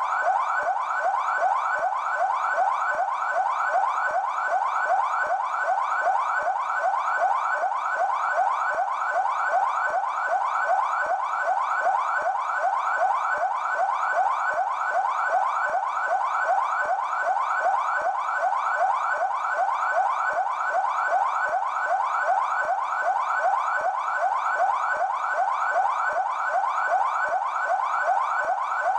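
PMESP (São Paulo Military Police) siren in yelp mode: a fast, continuous wail sweeping up and down about three times a second, unbroken and at a constant level.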